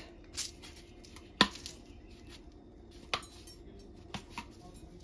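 Kitchen utensils being handled: a few separate sharp clicks and knocks, the loudest about one and a half seconds in.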